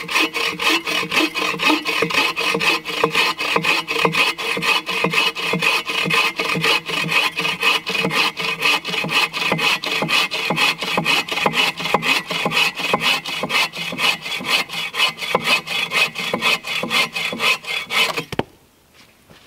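Agawa Canyon Boreal 21 folding bow saw cutting a well-seasoned beech log about 4 inches thick, its aggressive blade rasping through the hardwood in quick, even back-and-forth strokes. The sawing stops suddenly near the end as the cut goes through.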